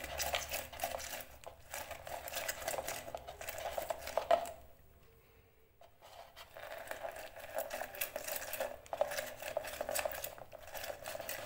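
Lemon halves with the yellow zest removed, twisted and pressed by hand on a plastic manual citrus reamer: a dense run of small clicks and scrapes of fruit against the ridged cone. There are two stretches, with a pause of about two seconds in the middle.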